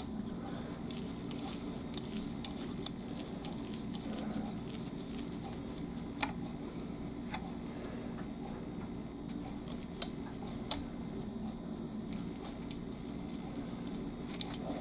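Scattered light clicks and taps from handling a sewing machine, over a faint steady low hum.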